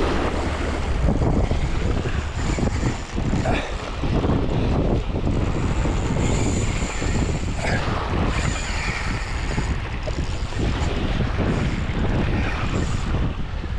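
Strong wind buffeting the microphone, with waves washing over the shoreline rocks.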